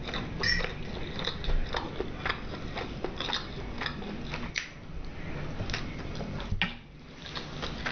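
A person chewing and biting food close to the microphone, with irregular sharp clicks and wet mouth smacks.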